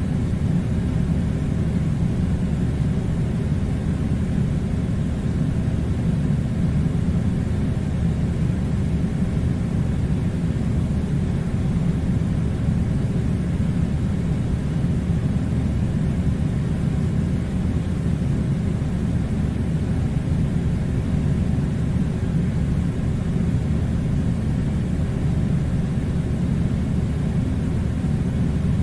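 Steady low rumbling drone with a faint constant hum, unchanging throughout.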